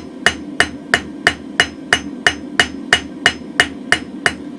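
Hand hammer striking hot mild steel on an anvil in an even rhythm of about three blows a second, each with a short metallic ring, as the tapered point of a small round drift is rounded up. A steady low hum runs underneath.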